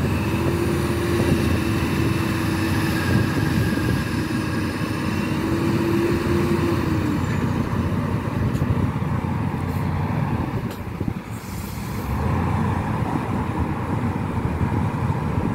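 Heavy diesel engines of a Hino 500 dump truck and a Hitachi ZX350 excavator running hard under load as the excavator lifts the mired truck out of the mud. A steady whine holds for the first seven seconds or so, and a short hiss comes about eleven seconds in.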